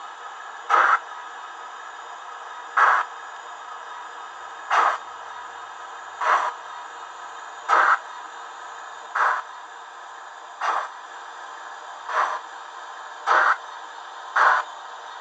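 Steam exhaust chuffs of a DB class 41 locomotive from a model's DCC sound decoder, played through its small loudspeaker: slow, evenly spaced hissing beats that gradually quicken, as the locomotive pulls away, over a steady faint hiss.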